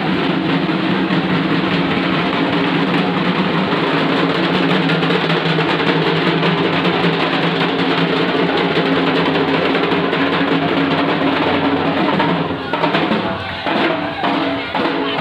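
Several dhak drums, large Bengali barrel drums beaten with sticks, played together in a dense, continuous roll; near the end the roll breaks up into separate, uneven strokes.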